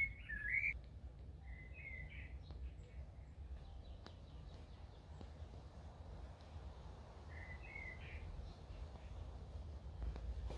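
Outdoor garden ambience: a steady low rumble with a bird chirping short phrases at the start, about two seconds in, and again about eight seconds in.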